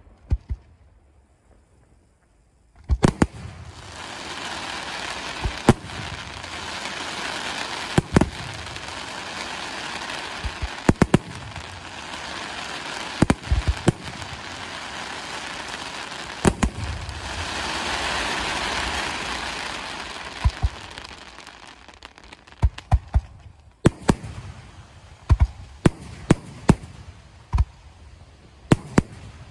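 Aerial fireworks display: shells bursting with sharp bangs. After a quiet start with a couple of bangs, a dense continuous hiss and crackle sets in about three seconds in, punctuated by bangs, and dies away to a rapid run of separate bangs near the end.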